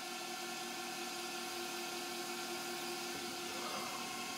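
Hercus PC200 small CNC lathe running its spindle at 2400 rpm on a finish turning pass in acetal: a steady machine hum with several held tones.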